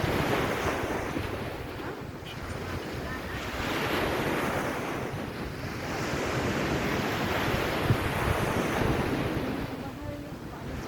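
Sea waves washing onto the shore, swelling and fading in slow surges a few seconds apart, with wind rumbling on the microphone.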